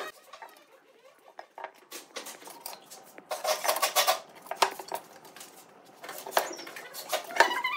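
Steel ruler clicking and knocking as it is set down and shifted on pine boards, with the boards bumping on the workbench: a scattered series of light metallic clicks, the loudest near the end.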